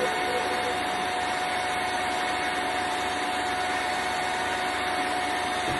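Electric stand mixer running at a steady speed, its beaters mixing egg yolks into cake batter, with a steady motor whine.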